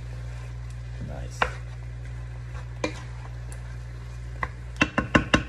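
Wooden spatula knocking against a metal wok while stirring a stir fry: a couple of single knocks, then a quick run of sharp knocks near the end, about five a second. A steady low hum sits underneath.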